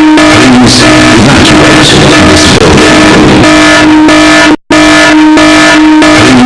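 Building evacuation alarm sounding a steady, harsh, heavily distorted tone. It cuts out for an instant about four and a half seconds in, then starts again.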